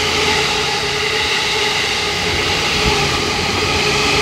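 JR 257 series 500 limited-express electric train passing close through a station without stopping: steady running noise of wheels on rail and passing cars.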